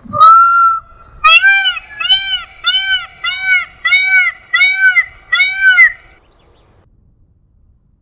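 Indian peafowl (peacock) calling: one long call, then a quick run of about seven shorter calls, each rising and falling in pitch.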